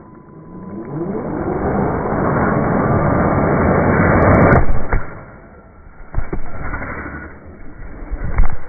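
Radio-controlled car's motor whining, rising in pitch and loudness as the car speeds up toward the ramp and drives over it, then cutting off sharply just before the halfway point. A few knocks and thumps follow, the loudest near the end.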